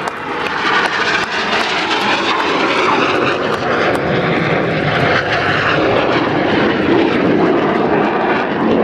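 Red Arrows BAE Hawk jets passing by: loud, steady jet engine noise that swells over the first second and then holds.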